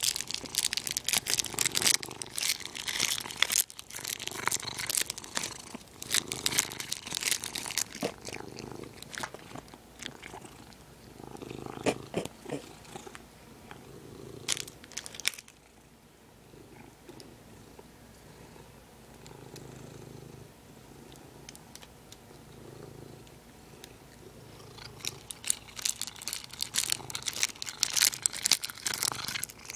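A cat chewing and licking a clear plastic bag, making dense crinkling and crackling in the first several seconds and again near the end. The cat purrs throughout, and the purring is heard on its own in a quieter stretch in the middle.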